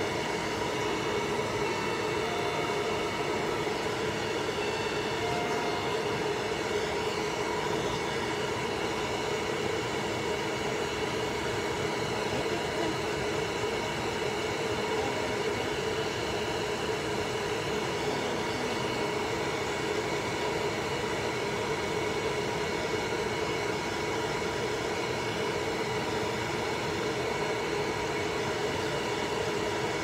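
Hair dryer running steadily, drying a chinchilla's damp fur: a constant rush of air with a steady motor whine.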